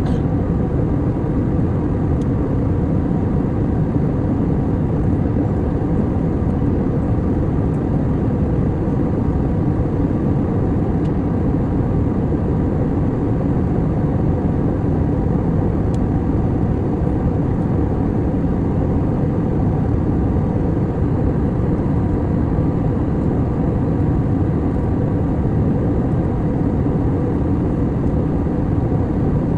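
Airliner cabin noise in flight: a steady low drone of engines and rushing air, unchanging throughout.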